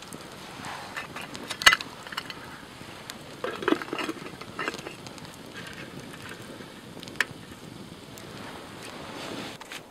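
A few sharp metallic clinks as a lid is fitted onto a blackened camp kettle: one loud clink a little under two seconds in, a quick cluster around four seconds, and one more near seven seconds, over a steady low hiss.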